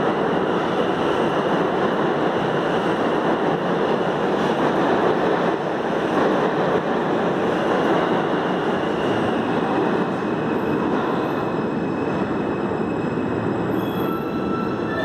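New York City subway F train pulling out of an underground station, its cars running past the platform with a steady loud rumble and faint high wheel squeal. Near the end the last car clears and squealing tones from the departing train rise.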